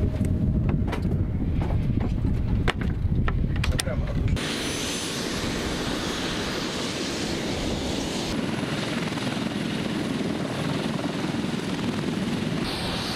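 Heavy low rumble with scattered clicks, like wind buffeting a microphone, beside a helicopter cockpit. About four seconds in it cuts abruptly to the steady rushing whine of a Mi-28N attack helicopter's turbine engines and rotor running on the ground.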